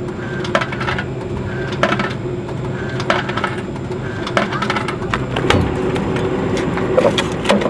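Frozen bait vending machine humming steadily as it vends, with scattered clicks and knocks about every second or so. Near the end a hand pushes open the plastic pickup flap and reaches in for the dropped pack.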